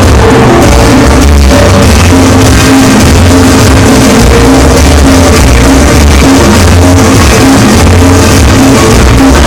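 Loud dance music played over a large sound system with heavy bass, distorted by the recording.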